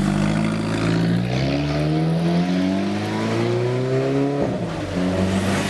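Alfa Romeo car engine accelerating: a steady engine note climbs in pitch for about three seconds as the revs rise, then falls back abruptly and settles lower.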